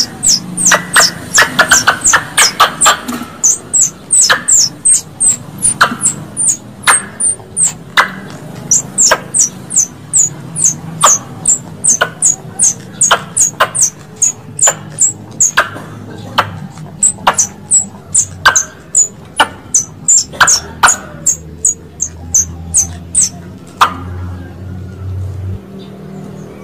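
Recorded squirrel calls played as a hunting lure: a long run of short, sharp, high chips, several a second, coming in bursts with brief pauses.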